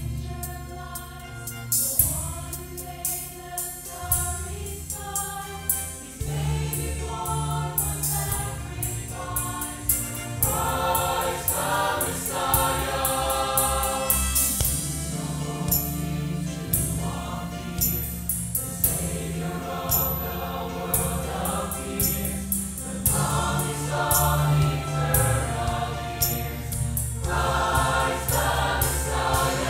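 Church choir of adults and children singing together over an instrumental accompaniment that holds low bass notes under the voices.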